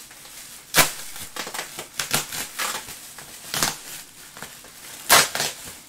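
Foil pouch being opened and handled: a loud, irregular crinkling and crackling of the foil, sharpest about a second in and again near the end.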